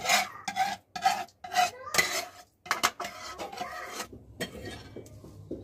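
Metal ladle scraping and knocking against a frying pan as food is scraped out into a pot: a quick run of sharp scrapes with a ringing note, then rougher scraping that fades after about four seconds.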